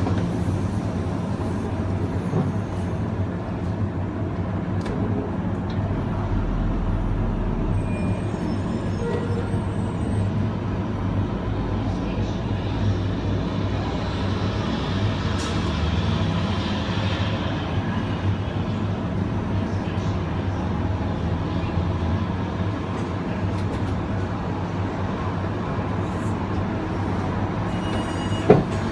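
Long Island Rail Road Kawasaki M9 electric multiple-unit train heard from inside the car, a steady, continuous rumble of the train running on the rails. There is a single sharp click near the end.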